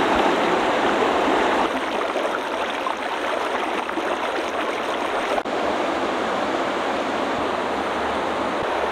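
River water flowing in a steady rush, with a brief break about five and a half seconds in.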